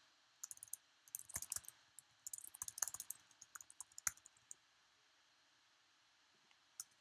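Typing on a computer keyboard: a run of quick key clicks for about four seconds, then it stops, with two more single key clicks near the end.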